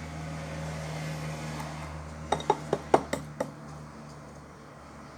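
A spoon clinking against a bowl about six times in quick succession a little past two seconds in, over a steady low hum.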